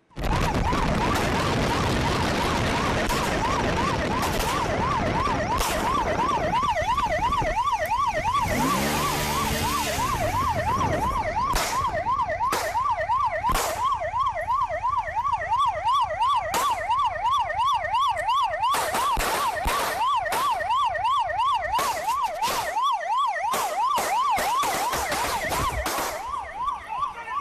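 Police siren in a fast yelp, steadily warbling up and down over wind and road rush from a moving police motorcycle. From about eleven seconds in, sharp cracks of pistol fire cut through, some in quick runs.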